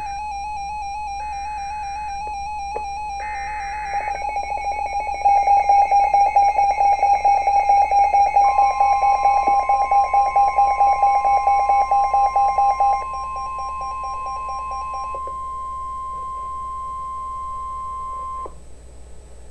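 Emergency alert tones for a new flood warning. Three short buzzy data bursts are followed by a warbling electronic alarm, which turns into a fast pulsing beep about five seconds in and stops about fifteen seconds in. About eight seconds in, a single steady alert tone begins and holds for about ten seconds: the Weather Service's 1050 Hz warning alarm.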